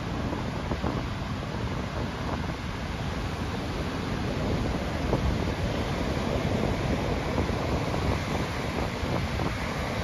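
Ocean surf breaking and washing up onto a sandy beach, a steady rush of water, with wind buffeting the microphone as a low rumble. The surf grows a little louder about halfway through.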